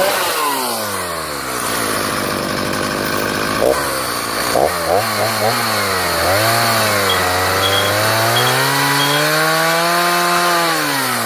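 Stihl Farm Boss two-stroke chainsaw running just after starting. Its engine speed falls away at first, then the throttle is blipped a few times and the saw is revved up and down.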